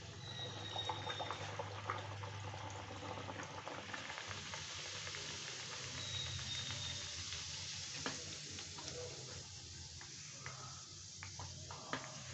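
Whole-wheat puri dough deep-frying in hot oil in a kadhai: a dense sizzling and crackling, strongest in the first few seconds and easing a little as the puri floats and puffs up. A few sharp ticks near the end.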